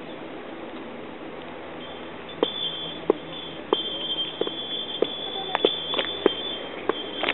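Small hiker's bell jingling in time with walking steps, struck about every half second from about two seconds in, over a steady background hiss.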